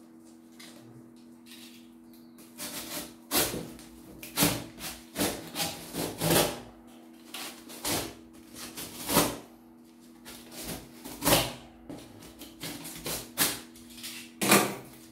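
A string of irregular knocks and scrapes from things being handled, starting about two and a half seconds in, over a steady low hum.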